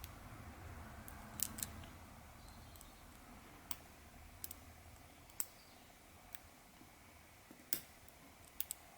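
Lock pick working inside a pin-tumbler padlock: about ten faint, sharp metallic clicks, irregularly spaced, as pins are lifted and set under tension.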